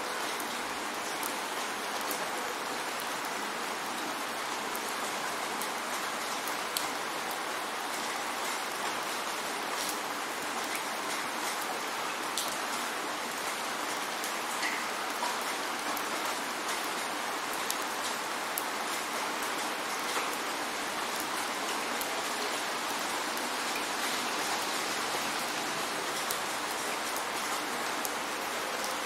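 Steady rain falling, a continuous hiss with many small irregular drop ticks.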